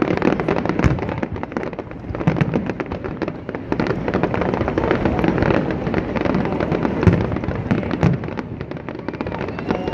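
Fireworks going off: a dense, continuous crackle with a few deeper booms standing out.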